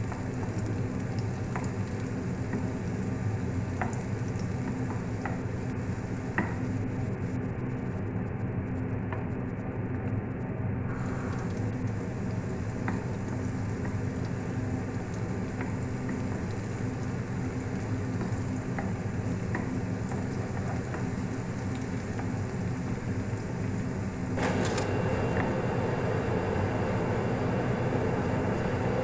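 Chopped garlic sizzling in hot oil in an aluminium frying pan while being stirred with a wooden spatula, with a few light taps of the spatula on the pan. The sizzle steps up suddenly and stays louder near the end.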